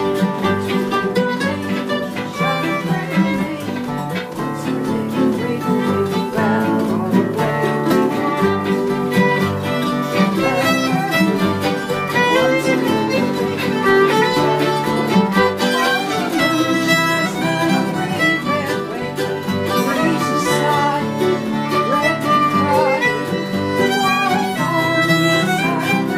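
Folk tune played on fiddle with guitar accompaniment, continuous and steady.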